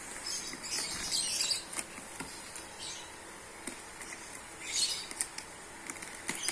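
A black plastic mailer bag crinkling and scratching as it is cut along its taped edge with a box cutter and pulled open, in several short rustling bursts with a few sharp clicks.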